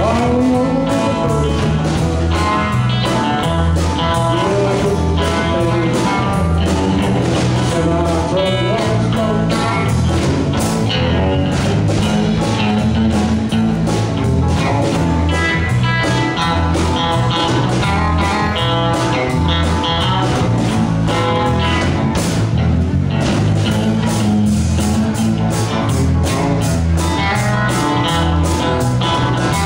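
Live band playing a blues-rock tune: electric guitar, keyboard and drum kit with a steady beat, and a man singing.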